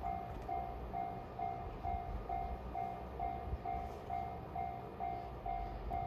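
Japanese railway level-crossing warning bell ringing, a steady electronic ding repeating about twice a second, over a low rumble.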